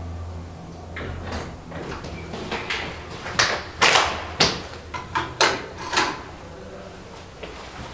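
Room door opening and a person coming in with bags and gear: a string of knocks, bumps and rustles, the loudest clustered between about three and six seconds in, with clicks near the end as the light switches are pressed.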